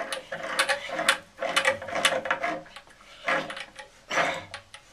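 Irregular clicks and clatter of hand tools and pipe fittings being worked during plumbing work.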